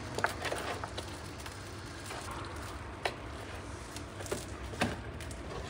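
Hands turning raw meat and sprinkling seasoning over it in a plastic basin: a few soft taps and wet squelches over a steady low hum.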